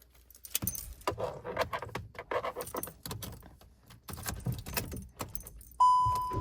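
A bunch of keys jangling and rattling in a hand. Near the end a car's warning chime begins, a single ringing tone repeating about once a second.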